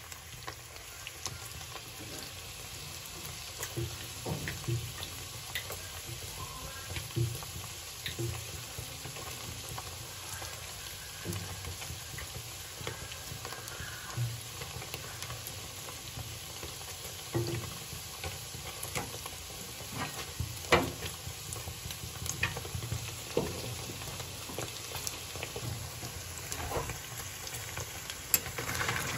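Paneer cubes frying in oil in an iron kadai: a steady sizzle with scattered sharp pops and crackles.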